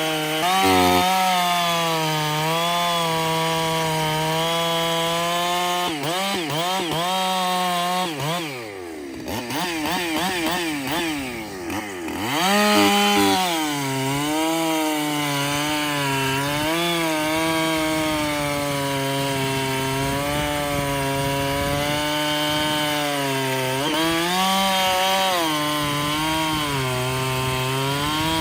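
Two-stroke chainsaw cutting into wood under load, its engine note wavering steadily as it works through the cut. About eight seconds in, the revs swing up and down for a few seconds before it settles back into the cut.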